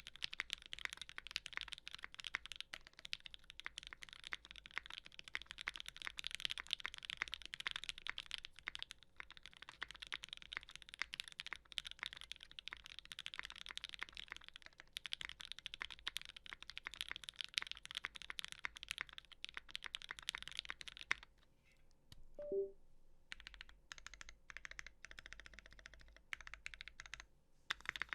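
Typing on a Think 6.5 V2 65% mechanical keyboard with lubed Tealios linear switches on an FR4 plate and GMK keycaps: a fast, dense run of key clacks, then a pause about three quarters of the way in with a short pitched tone, then slower, sparser typing.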